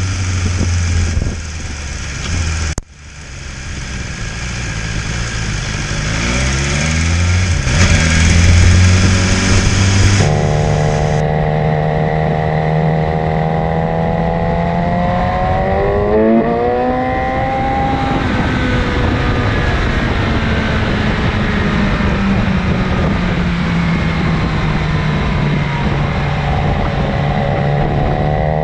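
A 2019 BMW S1000RR's inline-four engine running at speed on track, its pitch rising as the bike accelerates, twice. The sound drops out sharply for a moment about three seconds in, then swells back up.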